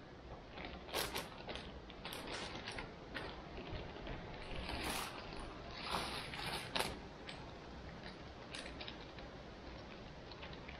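Plastic zip-lock sandwich bag crinkling and rustling in the hands, irregular crackles as it is pulled open and its freeze-dried lamb fettuccine is tipped out into a mug of boiled water. The crinkling is busiest from about four to seven seconds in, while the bag is emptied.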